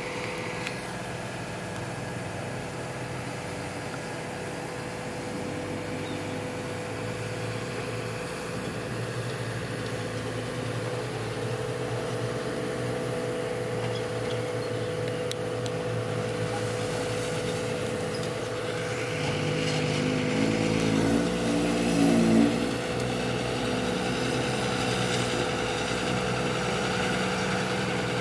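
Heavy diesel engines running steadily, from a CAT 320D excavator and a six-wheel dump truck, with a steady high tone held over the engine note. The sound grows slowly louder, with a short louder surge of engine noise about twenty seconds in.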